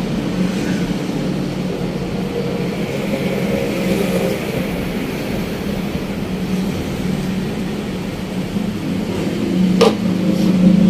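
Steady mechanical hum of a running motor, with a short click near the end.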